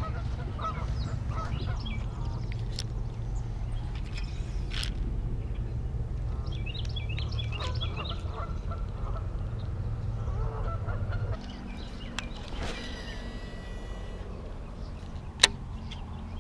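Geese honking repeatedly over a low steady rumble; the rumble cuts off about eleven seconds in, and a single sharp click comes near the end.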